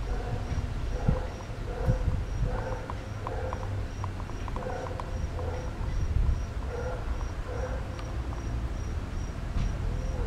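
A cricket chirping steadily, a short high pulse about twice a second, over a low rumble on the microphone.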